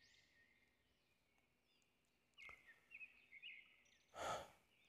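Faint forest ambience with a few soft bird chirps between about two and a half and three and a half seconds in, over a thin steady high tone. A short breathy puff, the loudest sound, comes just after four seconds.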